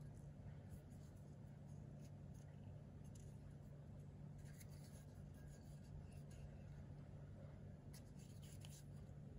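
Near silence: room tone with a steady low hum and faint scattered ticks and rubbing from a hand handling a fixed-blade knife.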